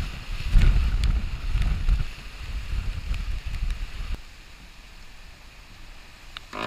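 Storm wind buffeting the microphone over the rush of water past a Class 40 racing sailboat's hull, gusting hard, then dropping off sharply about four seconds in to a quieter hiss of wind and water. A few faint knocks come through.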